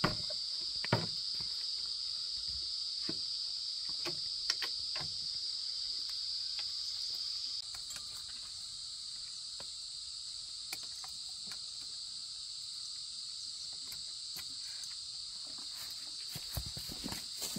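Steady, high-pitched drone of insects chirring, with scattered light clicks and knocks. The drone drops slightly in level about halfway through, and a few knocks come close together near the end.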